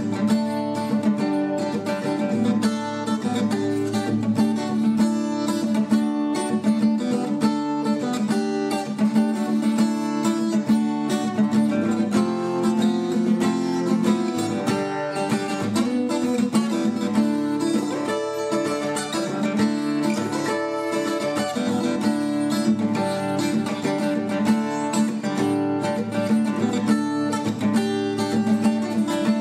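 Background music: plucked guitar playing a steady run of notes.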